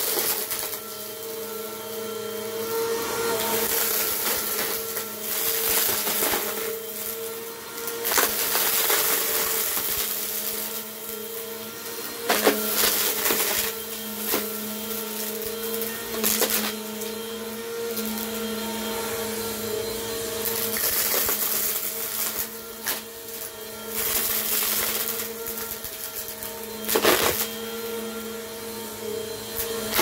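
Bissell PowerForce Compact upright vacuum cleaner running on carpet with a steady motor drone, crackling and clattering as it sucks up wood shavings and small hard pieces. The sound swells and eases as it is pushed back and forth, with a few louder sharp clacks.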